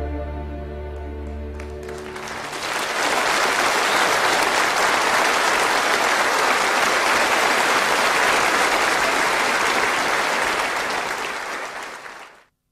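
The last held chord of a violin over a low drone dies away, and about two seconds in an audience breaks into loud, steady applause that cuts off abruptly near the end.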